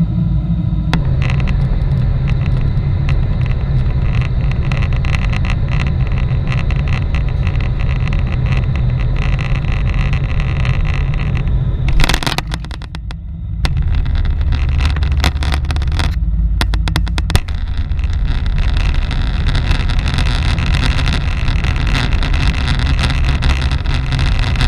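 Cabin noise of a Boeing 747-8 landing, heard from a window seat over the wing: a steady roar of engines and airflow on final approach, a sudden bump about halfway through as the wheels touch down, then a deeper rumble through the landing roll with the spoilers raised.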